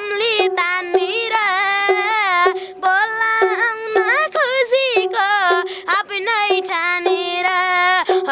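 A boy singing a Nepali song in a high voice, in long held notes that bend and waver, with short breaks between phrases.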